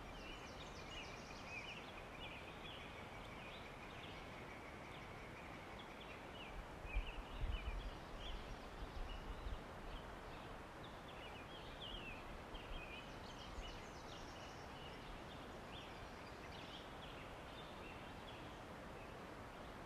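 Forest ambience: small birds chirping and trilling in many short calls over a faint steady hiss. A few low rumbles come about seven to ten seconds in.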